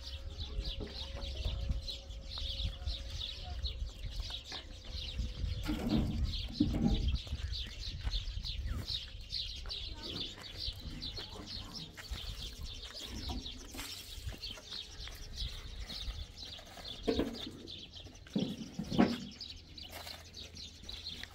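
Small birds chirping rapidly and continuously, with wind rumbling on the microphone. A few short, low voice-like calls come about six seconds in and again near the end, the last one the loudest.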